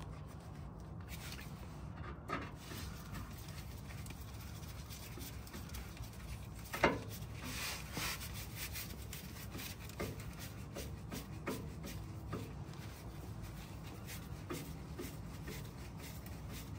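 Faint rubbing and scattered light clicks of a screw being fitted back into the vehicle's underside by hand, with one sharper click about seven seconds in.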